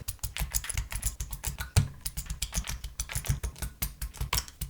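Keycaps being pulled off a Tofu60 2.0 mechanical keyboard: a quick, irregular run of plastic clicks and clacks, several a second, as cap after cap comes off the switches.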